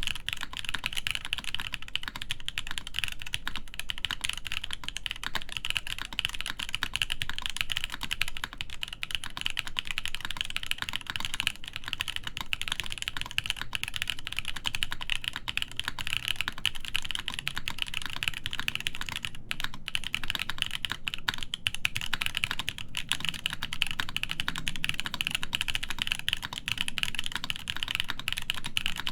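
Continuous fast typing on a top-mount mechanical keyboard with an aluminum plate, lubed linear Poseidon switches and DCS keycaps: a dense, steady stream of key clacks.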